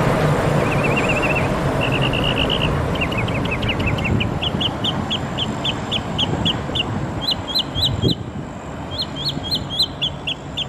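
Steady rumble of a monorail train gliding past on its overhead beam, while a songbird sings a long run of quick, repeated chirps and trills that change phrase every second or so.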